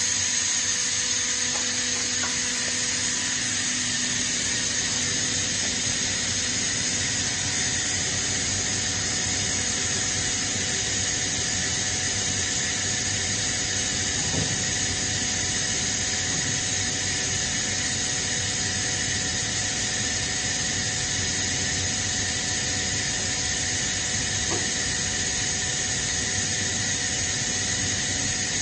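Kaeser ASD 47 oil-injected rotary screw air compressor running loaded at 7.5 bar: a steady rushing machine noise with a constant high whine over it.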